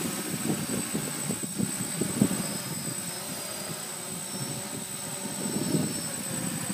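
DJI F550 hexacopter's six electric motors and propellers running steadily as it hovers, with strong, gusty wind buffeting the microphone.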